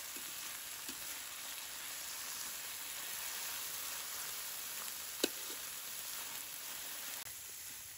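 Fermented soybeans, ginger and garlic sizzling steadily in a hot wok as they are stir-fried and the added water cooks off, with a single sharp clink of the metal spatula on the wok about five seconds in.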